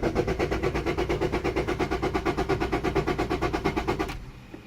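Honda Civic engine cranking over on the starter motor in an even, fast pulsing rhythm without catching. The cranking stops about four seconds in.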